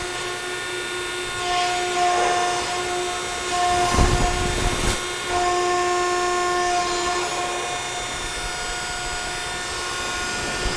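Hydraulic pump and ram of a 176-ton Ermak CNC hydraulic press brake running through its motions, a steady hum with tones that strengthen while the ram moves. A heavier low rumble comes about four seconds in and lasts about a second.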